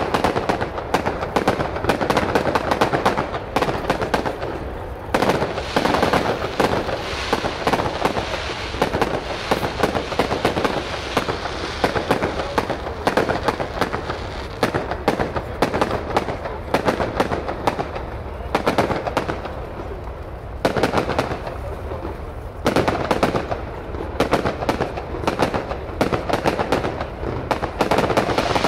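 Aerial fireworks display: a dense, rapid stream of bangs and crackling from bursting shells, easing off briefly a few times before picking up again.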